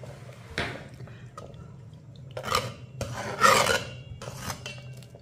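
Brass spoon scraping and stirring thick ragi and green gram porridge against the inside of a brass pot, in several rasping strokes; the loudest comes a little past halfway.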